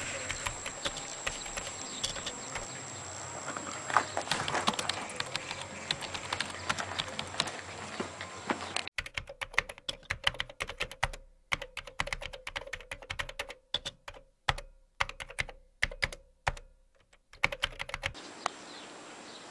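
Keyboard typing sound effect: quick, uneven key clicks with short pauses between runs. For about the first nine seconds they sit over faint outdoor background noise, then go on alone between silent gaps.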